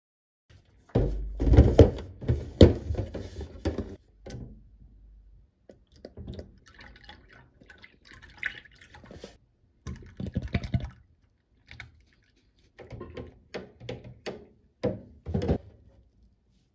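Soy milk poured from a carton into a plastic food container, with knocks and thuds as the carton, container and dishes are handled. The loudest knocks come in a cluster about a second in.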